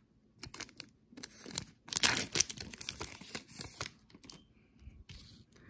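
Wrapper of a Panini Illusions trading-card pack being torn open and crinkled by hand: a run of short tearing and rustling noises, loudest about two seconds in, then fainter handling.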